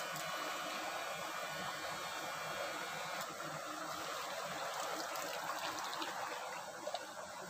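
Water of a small stream flowing, a steady rushing hiss, with a few faint clicks in the second half.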